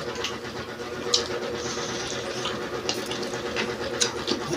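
Close-up eating sounds: chewing with scattered crisp crunches and mouth clicks, over a faint steady background hum.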